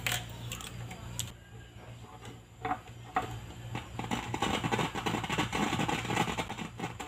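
Scattered clicks, then a run of scratchy crackling, as analog multimeter probes are touched to a CRT TV's loudspeaker terminals in a speaker check. The speaker tests good. A low steady hum runs underneath.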